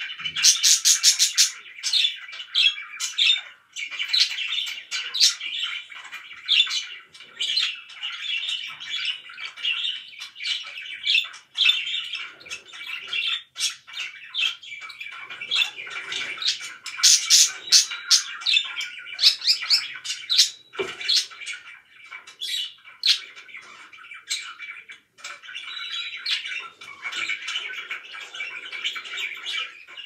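Caged budgerigars chattering and warbling without pause, with many sharp, high chirps mixed in. The chirps come thickest about a second in and again a little past halfway.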